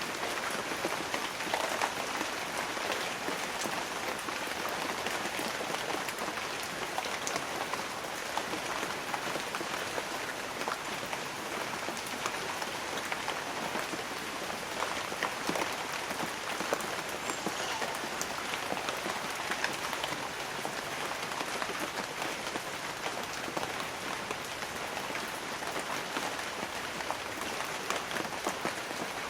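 Light rain falling on broad banana leaves: a steady, even patter of many small drops.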